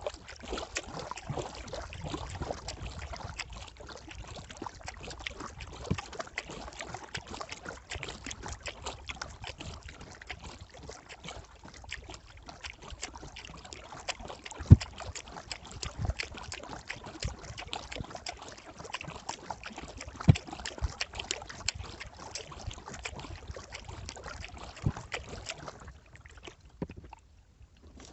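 Kayak paddling on calm water: the paddle blades dip and splash, with drips and scattered sharp ticks and knocks, and the sound dies away near the end.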